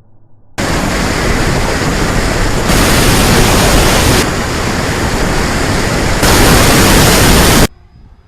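Loud, even rushing noise with no motor tone, most likely wind blasting over the microphone of a camera mounted on the RC plane in flight. It starts abruptly about half a second in, steps louder and softer a few times, and cuts off sharply near the end.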